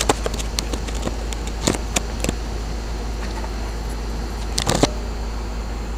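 1996 Janitrol central air-conditioner condensing unit running, a steady hum and fan whoosh, with several sharp clicks and knocks at the start, around two seconds in, and near five seconds in.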